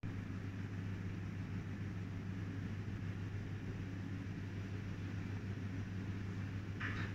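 Steady low mechanical hum with a rumble underneath, and a short hiss near the end.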